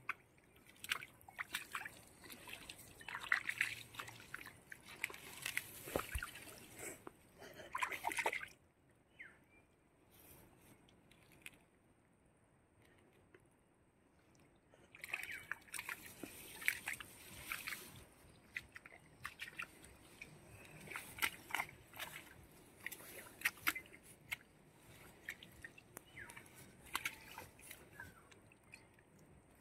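Wet mud and shallow water squelching, sloshing and splashing in irregular bursts, the sound of digging or groping through pond mud. There is a quiet stretch of several seconds in the middle.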